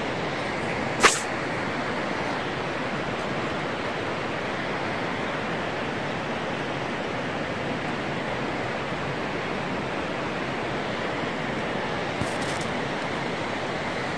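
Steady rushing hiss of outdoor ambience, with one sharp click about a second in.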